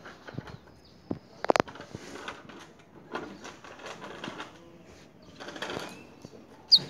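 Irregular clicks and light rattles from a white-collared seedeater's wooden cage as the bird moves about, with one short, sharp high chirp near the end.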